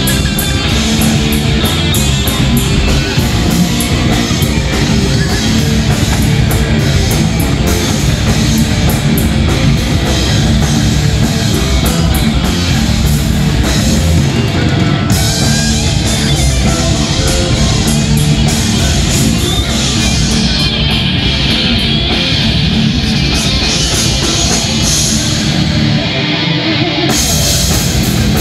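Thrash metal band playing live and loud: distorted electric guitars, bass and a drum kit with fast cymbal hits. About halfway through the cymbals drop back, and near the end the bass and drums cut out for a moment before the full band comes back in.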